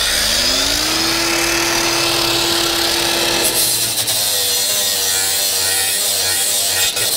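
Cordless angle grinder running at speed: its whine rises over the first second and holds steady. A few seconds in, the pitch drops and wavers as the disc bites into the rusty steel mower deck to grind off a broken piece.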